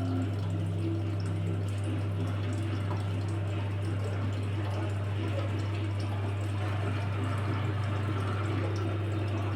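Washing machine running, with water swishing and splashing in the drum over a steady low hum.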